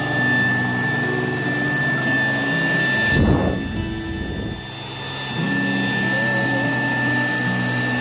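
Raycop cordless vacuum cleaner running with a steady motor whine. About three seconds in, the high whine drops away for roughly a second and a half, then comes back.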